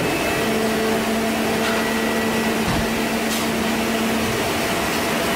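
Steady machine and ventilation noise of a factory hall, with a steady low hum that comes in about half a second in and stops about a second before the end.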